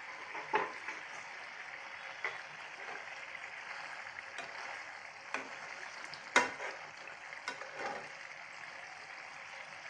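Bitter gourd curry simmering in a steel pan with a steady bubbling hiss, while a metal slotted spoon stirs it and clinks and scrapes against the pan several times, the loudest knock about six seconds in.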